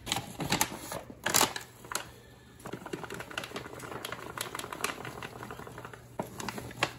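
Paper bag of all-purpose flour crinkling and crackling in the hands, then flour pouring from the bag into a glass baking dish as a soft, steady hiss over the last few seconds.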